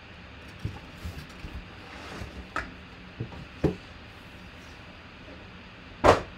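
A clear plastic mini-helmet display case and a cardboard box being handled: soft rustling and a few light knocks, then one loud knock about six seconds in.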